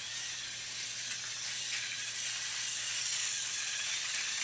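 Battery-powered toy trains running on plastic track, a steady whirring hiss with no separate clicks.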